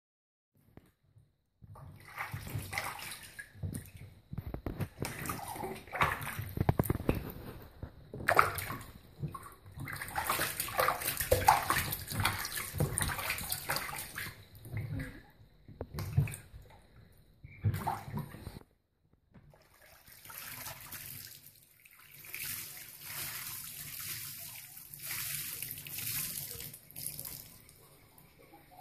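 Water splashing and sloshing in a baby bathtub as hands wash a newborn lying on a foam bath support. There is a short break a little past halfway, then softer, thinner water trickling and splashing.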